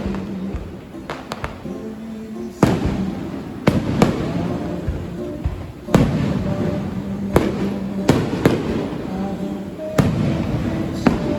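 Aerial fireworks bursting, about a dozen sharp bangs at irregular intervals over a continuous rumble, with music and voices underneath.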